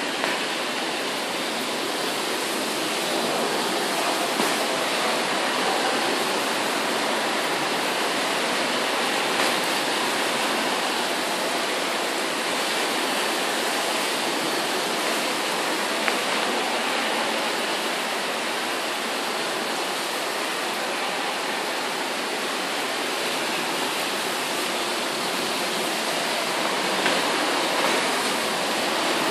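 Thunderstorm rain pouring down in a steady, even hiss.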